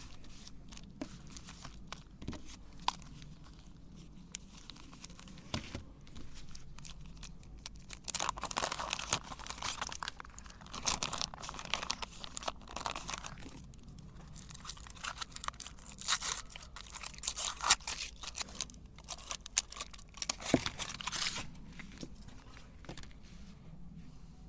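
Chocolate bars and their wrappers crackling, crinkling and crunching as they are handled. Scattered clicks at first, then two busy, louder stretches of crackling, one starting about a third of the way in and one past the middle.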